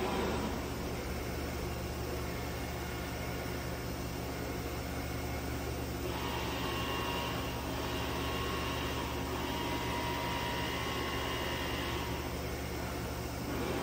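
DMS CNC router running inside its enclosure: a steady machine hum, with a faint high whine joining for about six seconds midway.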